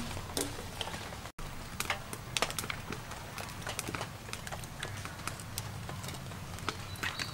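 Mussel shells clicking and clattering against one another as they are picked up by hand and set down, an irregular scatter of sharp clicks.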